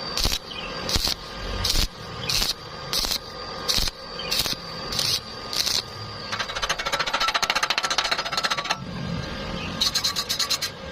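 Metal pipe fabrication: sharp strikes about every 0.7 seconds, then around two and a half seconds of fast, dense crackling typical of an electric welding arc, and a shorter crackle near the end.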